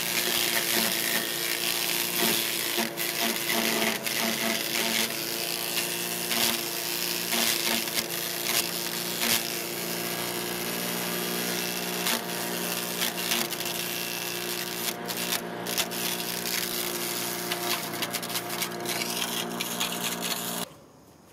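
Cub Cadet CS 3310 gas chipper shredder running steadily, its engine hum overlaid with frequent sharp cracks and clatter of yard waste and branches being chipped. The sound cuts off suddenly near the end.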